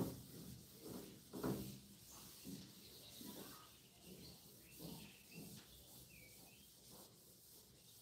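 A hand-held eraser is rubbed across a whiteboard in repeated, irregular wiping strokes, wiping off writing. The strokes are faint, and the firmest come at the start and about a second and a half in.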